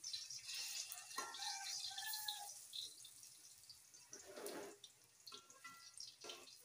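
Saba bananas frying in shallow oil in a metal wok, the oil sizzling and crackling. Metal tongs turn the bananas, clicking and scraping against the wok with short metallic rings.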